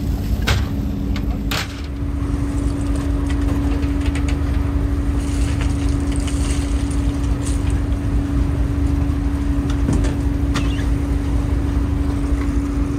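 Fishing boat engine running steadily: a constant low drone with an unchanging hum. A couple of sharp knocks sound in the first two seconds.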